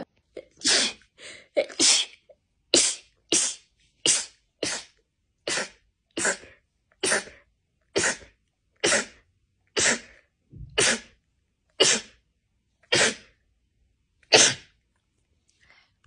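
A woman sneezing in a long rapid-fire run of short, small sneezes, about eighteen in all, coming nearly two a second at first and then slowing to about one a second.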